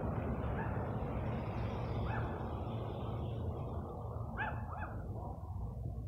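A few short, high animal yelps: single ones about half a second and two seconds in, then a quick cluster near the end. They sound over a steady rushing noise and a low hum.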